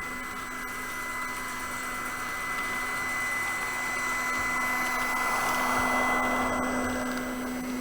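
Motor of a LUX H0 track-vacuum car running with a steady whir and hiss as it cleans the rails. It is pushed by a Märklin Henschel DHG 700 model diesel shunter whose sound decoder plays a diesel engine hum. The noise swells about six seconds in and eases near the end.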